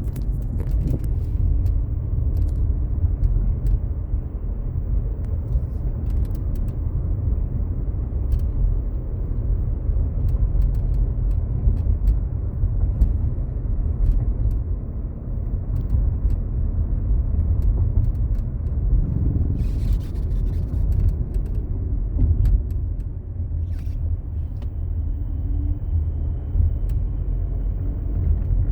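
Skoda Slavia dashboard creaking: short irregular creaks and clicks heard over the steady low rumble of the car's cabin on the move.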